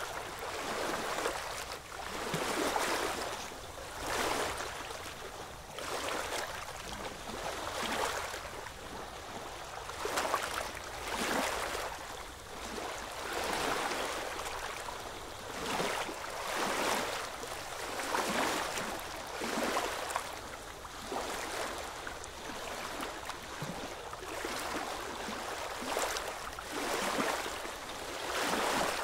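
Small sea waves lapping and splashing against shoreline rocks, washing in with irregular surges every second or two.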